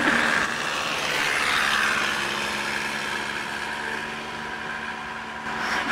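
Steady outdoor road-traffic noise: a hiss with a faint low engine hum, swelling briefly near the end.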